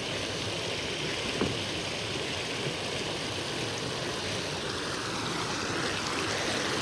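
Steady rush of a foamy stream tumbling over rocks.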